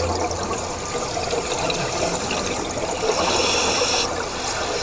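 Underwater bubbling of a scuba diver's exhaled breath rising from the regulator, a steady watery rush, with a brighter hissing surge of bubbles about three seconds in that lasts about a second.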